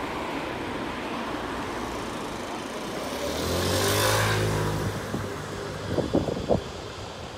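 Street traffic, with a car driving past close by: its engine and tyres swell to a peak about halfway through, then fade. A few short, sharp knocks follow near the end.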